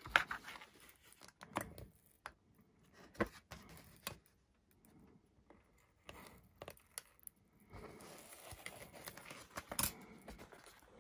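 Faint scraping, tearing and scattered clicks as a masking-tape-wrapped micro servo is pried out of its glued foam wing pocket with a hobby knife. The sound quietens for a couple of seconds in the middle, and the scratching picks up again over the last few seconds.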